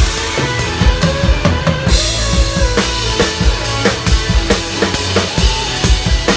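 Drum kit played live: kick drum and snare hits on a steady beat, with cymbals, over the pitched notes of the rest of the band.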